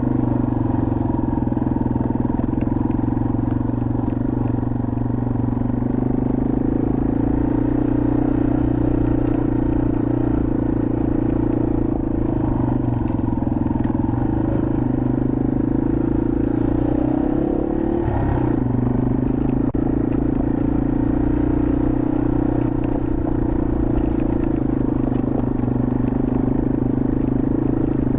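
Yamaha TW200's single-cylinder four-stroke engine running steadily as the dirt bike rides along a forest trail. About eighteen seconds in, the engine note climbs, drops sharply, then settles back.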